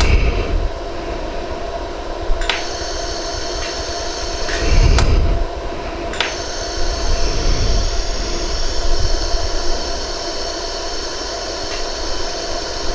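100-joule iWeld jewelry laser welder firing single pulses into fine wire on a white gold ring prong: a few sharp snaps, spaced irregularly a second or more apart, over the machine's steady hum.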